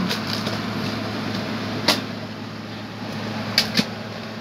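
Sharp clicks of disassembled laptop parts being handled: one about two seconds in, then two in quick succession near the end, over a steady low hum.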